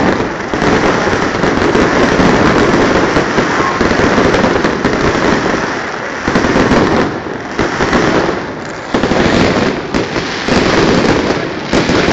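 Fireworks display going off in a dense, continuous barrage of bangs and crackling, loud throughout, with a couple of short lulls in the second half.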